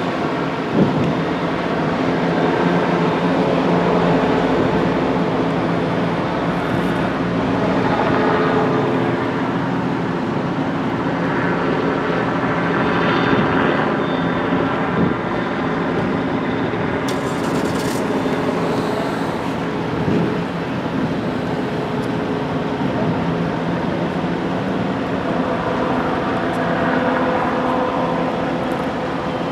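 Steady drone of idling vehicle engines, with road traffic passing by and swelling several times.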